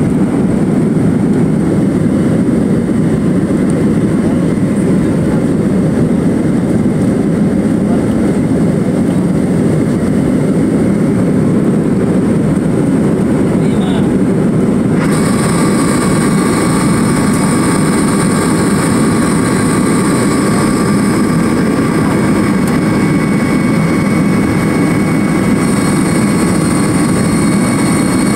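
Jet airliner cabin noise heard from a window seat over the wing while climbing out: a dense, steady rumble of engines and airflow. About halfway through, a set of steady high-pitched whining tones comes in and holds.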